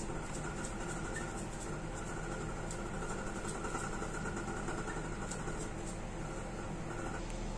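Steady hum of a small motor or fan running, with a faint high whine that cuts off near the end.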